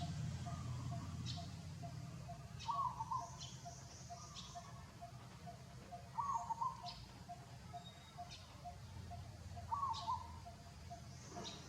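A bird repeating a short warbling call about every three and a half seconds, over a steady faint ticking of about three beats a second.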